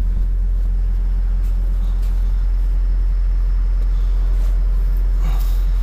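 Kobelco SK210 excavator's diesel engine running steadily with a deep, even hum. A brief higher-pitched sound comes in near the end.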